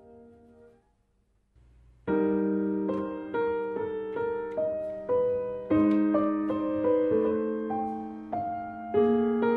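Background piano music. A held chord fades out within the first second, there is a short pause, and about two seconds in a piano starts a melody of struck notes, each dying away.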